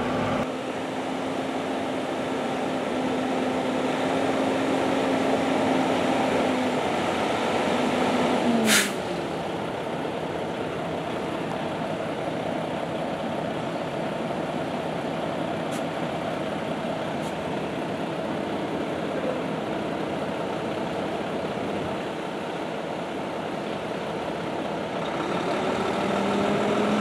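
Heavy truck engine idling, heard in the cab, with a steady hum. About eight seconds in the hum slides down in pitch and a sharp click sounds; an even rumble carries on after that, with a short rising and falling whine near the end.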